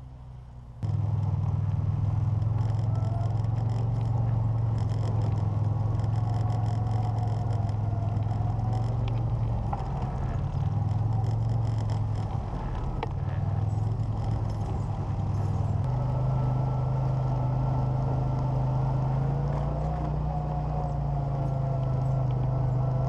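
CF Moto ZForce 800 side-by-side's V-twin engine running steadily as the machine drives along a trail, with light rattling of the bodywork. The engine note steps up a little about two-thirds of the way through.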